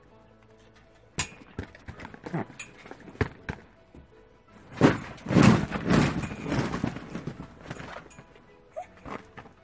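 A dog moving about on a trampoline mat among water balloons: scattered sharp clicks and knocks, then a louder stretch of thumps and scuffling about halfway through.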